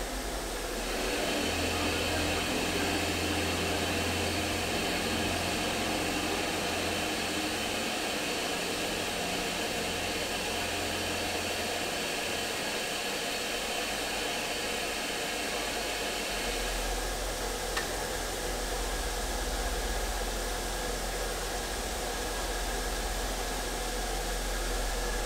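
Steady hiss of steam escaping from a stationary Black 5 steam locomotive, from around its cylinders at the front end. A higher part of the hiss drops away about two-thirds of the way through, and a low hum sits underneath during the first half.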